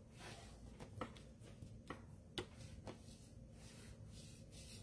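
Bone folder drawn along the fold of a cardstock card base to burnish it: faint repeated scraping strokes with a few light ticks.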